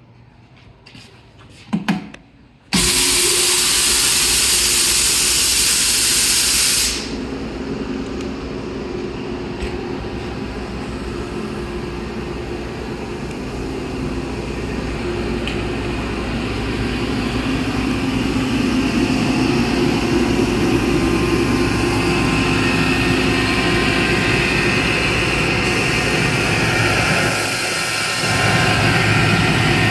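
Ingersoll Rand UP6 10 hp electric rotary screw air compressor starting up. About three seconds in it comes on abruptly with a loud rushing hiss that eases after about four seconds, then runs steadily, its hum and air rush slowly growing louder, with a short dip near the end.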